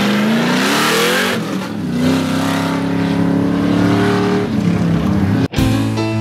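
Muscle car engine running hard on an autocross course, its pitch rising and falling, with a hiss of tyres as it passes in the first second. About five and a half seconds in it cuts off abruptly to acoustic guitar music.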